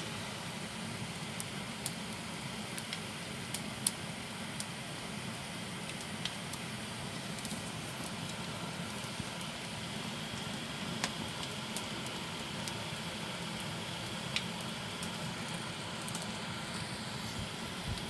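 Wood fire crackling with scattered sharp pops under a pan of heating grape must, over a steady hiss of the fire and the liquid coming up to the boil as it foams.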